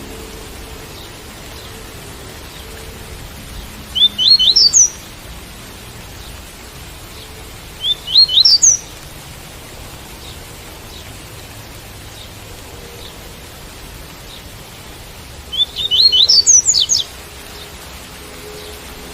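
Double-collared seedeater (coleiro) singing the 'tui-tui' song: three short phrases of quick rising notes, about four, eight and sixteen seconds in, over a steady hiss of rain.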